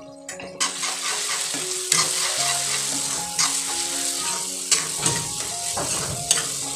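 Food sizzling loudly in hot oil in a kadai, the hiss starting suddenly about half a second in as more ingredients go into the pan. A steel spoon scrapes and knocks against the pan several times as it is stirred.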